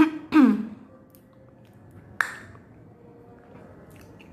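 A woman's short vocal sound at the start, then a mostly quiet room broken by a single sharp click with a brief ringing tone about two seconds in.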